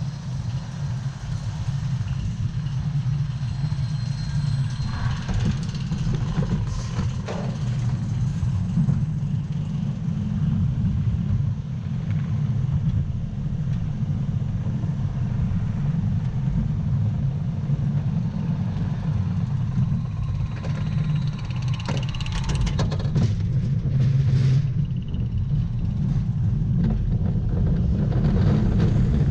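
Mack Wild Mouse roller coaster car climbing the chain lift hill: a steady low rumble from the lift chain and wheels on the steel track, with a few brief knocks.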